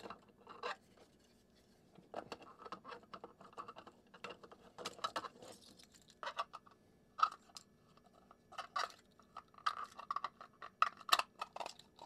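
Grey 3D-printed plastic model parts being handled and fitted together by hand: irregular light clicks, taps and scrapes of plastic on plastic, busiest and loudest in the last few seconds.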